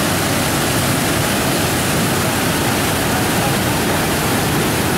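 Whitewater river rapids: a steady, loud rush of churning water.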